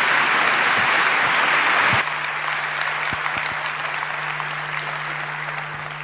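Audience applauding in a lecture hall, loud at first, dropping suddenly about two seconds in and then dying away.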